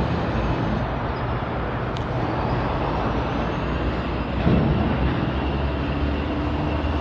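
Diesel freight locomotive engine running with a steady low drone over the rumble of a freight train.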